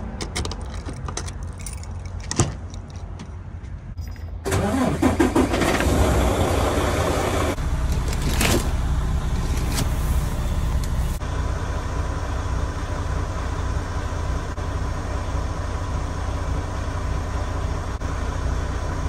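A semi-truck's diesel engine cranks and starts about four seconds in, after a few clicks and a knock, then runs on at a steady idle.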